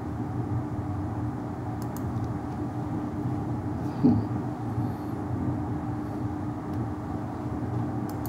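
Steady low background hum with one faint held tone. About four seconds in, a man coughs once into his fist.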